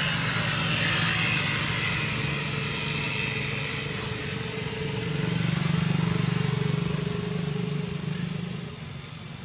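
Steady low engine drone from an unseen motor, swelling around the middle and dropping away near the end, over a high hiss.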